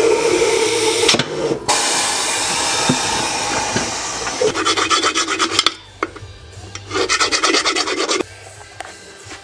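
A file rasping out the valve-stem hole of a wheel rim to take a new valve stem. A steady rasping at first, then two bouts of rapid short strokes about a second long each, the second ending abruptly about eight seconds in.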